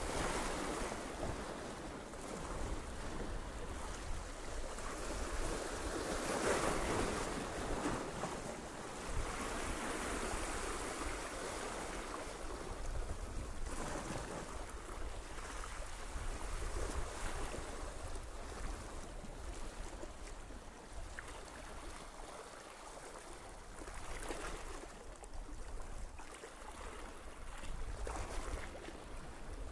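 Sea waves surging and washing over shoreline rocks in slow, swelling rushes, louder every few seconds, over a steady low rumble of wind buffeting the microphone.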